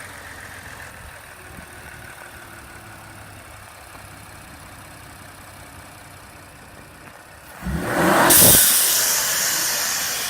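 Ford Fusion Sport's 2.7 EcoBoost twin-turbo V6, fitted with a BBK 65mm throttle body, idling steadily, then a single blip of the throttle near the end, the revs rising sharply and dying away slowly.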